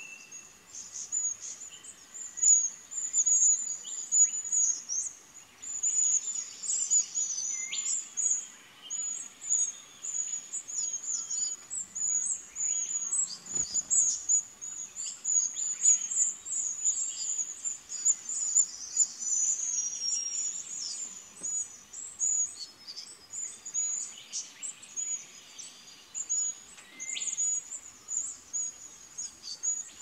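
Morning chorus of birds: many rapid, high-pitched chirps and twitters overlapping without pause, with scattered short downward-slurred whistles.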